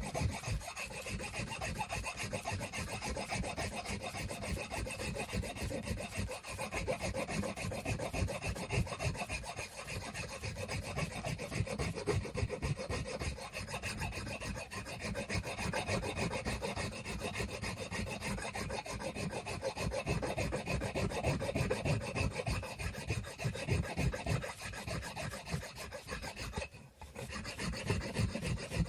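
Wood being sanded by hand, a steady run of quick back-and-forth rubbing strokes that stops briefly near the end.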